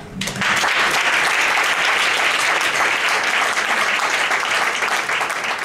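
Audience applauding at the end of a song. The clapping breaks out sharply just as the last sung note dies away and carries on dense and steady.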